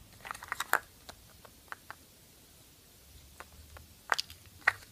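Small plastic toy figurines clicking and tapping against each other as they are picked up and handled: a quick cluster of clicks near the start, a few scattered single ticks, then a few sharper clicks near the end.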